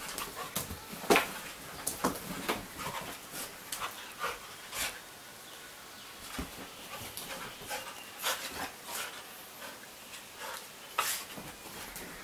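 A puppy playing on a bed, making short, irregular dog noises while it scrabbles on the rustling bedsheet. The loudest is a sharp sound about a second in, and there is a quieter stretch in the middle.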